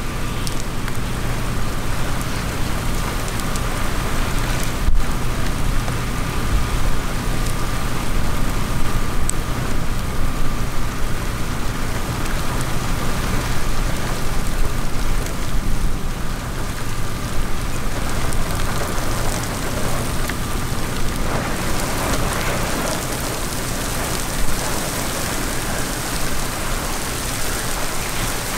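Heavy rain falling steadily during a severe thunderstorm, a dense even hiss with a single sharp click about five seconds in.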